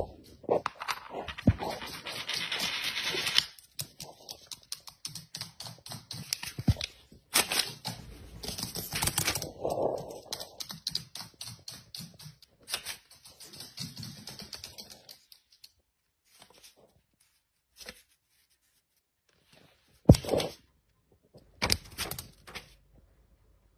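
A magpie's claws and beak tapping and scratching on a laminate floor and at a sheet of paper: a dense run of quick clicks, scratches and rustles, then sparser, with two sharp taps near the end.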